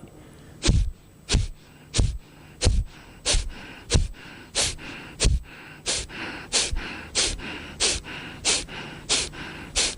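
Kapalbhati pranayama: a man's short, forceful exhalations through the nose, each one a sharp puff, about fifteen in an even rhythm of roughly three every two seconds.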